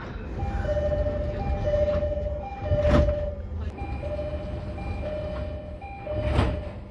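Commuter train's electronic two-note door chime, a higher note then a lower one, repeating about once a second. Two loud knocks come about three seconds in and near the end.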